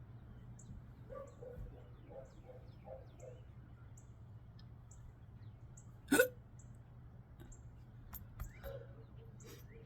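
A woman's single sharp, loud hiccup about six seconds in. Low steady hum and faint regular high ticks underneath.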